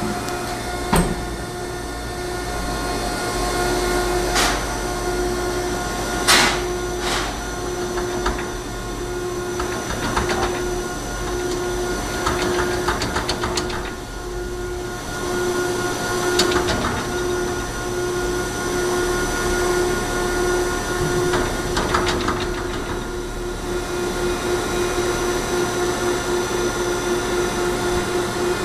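Baling machine running with a steady mechanical hum and a pulsing tone, broken by scattered knocks, the loudest about six seconds in.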